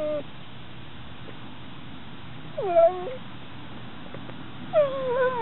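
Black Lab/Pit Bull mix dog whining: a high whine trails off right at the start, a short dipping whine comes about halfway, and a longer falling whine starts near the end.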